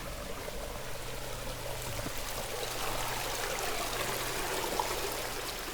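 Small brook-trout stream flowing steadily, a continuous rushing and trickling of water.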